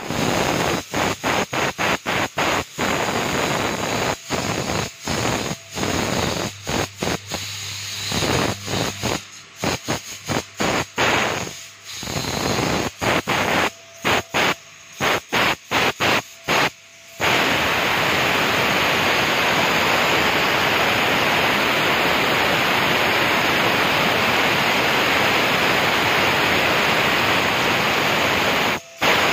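HITECO 6 kW, 18000 RPM spindle of a CNC router cutting patterns through a white-laminated board: a loud, even hissing cutting noise with a faint steady high whine. It drops out briefly many times during the first half, then runs unbroken.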